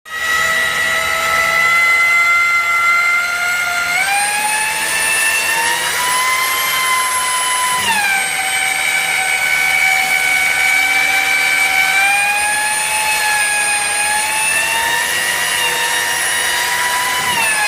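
Electric motor of an HDPE plastic welding machine running with a steady high-pitched whine. Its pitch rises about four seconds in, falls back about four seconds later, climbs gently again midway and drops near the end, as the load on the motor changes.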